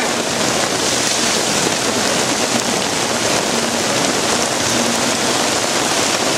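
Heavy rain coming down hard: a loud, steady hiss of a downpour, heard from under a tent canopy.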